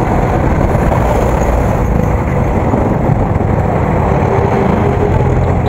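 Steady wind rush buffeting the microphone of a camera mounted on a moving motorcycle, with the motorcycle's engine and surrounding traffic underneath.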